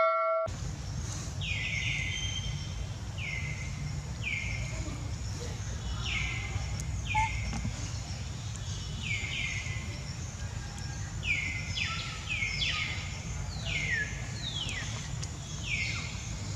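A bird calling over and over in short chirps that each fall in pitch, about one a second and coming closer together in the second half, over a steady low outdoor rumble. The tail of a bell-like chime cuts off half a second in.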